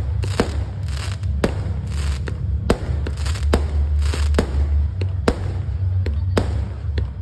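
Aerial fireworks going off in quick succession: sharp bangs about one or two a second, with crackling bursts between them, over a constant low rumble.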